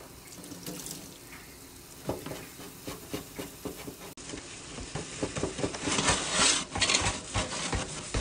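Sponge scrubbing and knocking against a stainless steel pot, then tap water running over it at the sink, loudest about six to seven seconds in.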